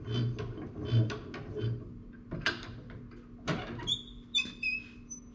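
Metal woodworking bench vise being screwed tight by its handle: a few dull knocks, then sharp clicks and short high squeaks near the end as the jaw closes on the board against a bench dog.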